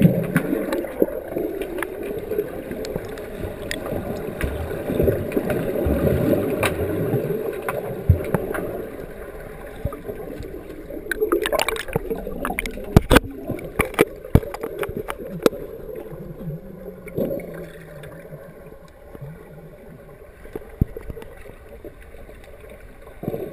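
Muffled underwater sound from a camera under water among swimmers in a pool: low rushing water and bubbling, with bursts of sharp clicks and knocks around the middle.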